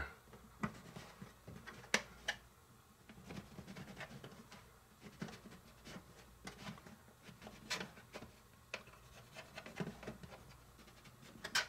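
Small knife cutting around a slice of soft white bread on a plastic cutting board: faint scraping of the blade through the bread and light scattered taps on the board.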